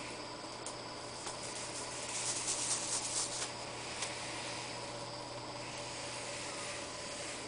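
Ragdoll kitten's claws scrabbling on a quilted cloth cover: a run of quick scratchy rustles about two to three and a half seconds in, and a few single clicks, over a steady background hiss and low hum.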